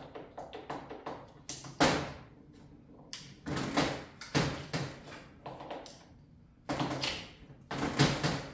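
A motorcycle transmission on the bench being shifted by hand: a series of sharp metal clunks and clicks from the shifter and shift cam, the loudest about two seconds in. The shifts don't always catch, which he puts down to not hitting the shifter hard enough.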